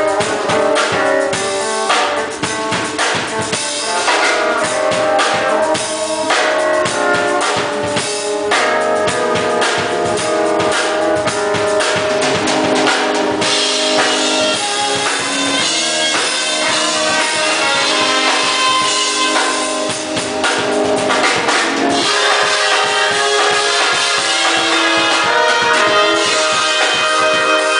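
Music with a drum kit and several pitched instruments playing held notes over it.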